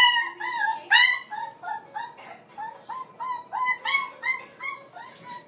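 Small puppy yipping: a rapid string of short, high-pitched yips, about three a second, growing fainter toward the end.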